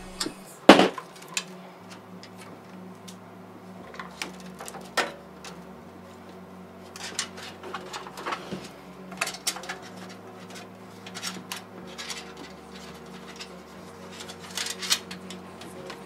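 Clicks and knocks of a water cooler's radiator and fan being handled against a metal PC case, with a sharp knock about a second in and smaller clicks scattered through, over quiet background music.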